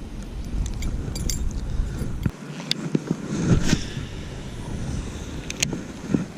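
Wind buffeting the microphone as a low rumble that cuts out about two seconds in, followed by scattered light clicks and knocks.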